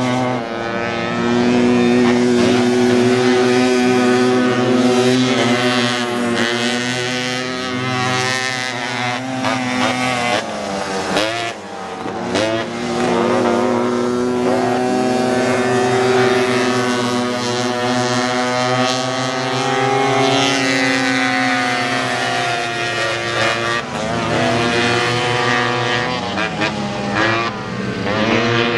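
Several off-road race buggy engines running at once, revving up and dropping back again and again as the buggies accelerate and lift off.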